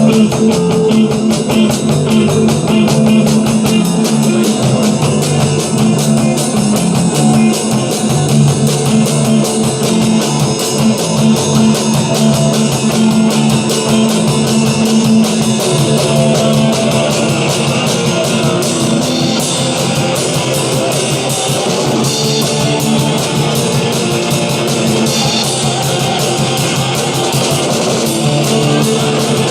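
Rock band playing at full volume: electric guitar over a drum kit beat.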